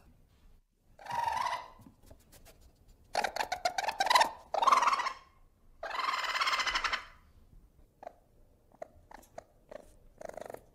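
Ferret sounds in short bursts: a brief call about a second in, a rapid run of clicks around three seconds, a longer noisy burst around six seconds, and scattered faint clicks near the end.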